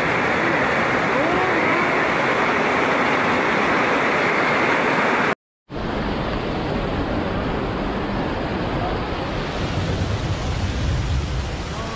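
Fast-flowing muddy floodwater rushing along a street, a dense steady rush of water. It cuts out for a moment about five seconds in and comes back a little quieter.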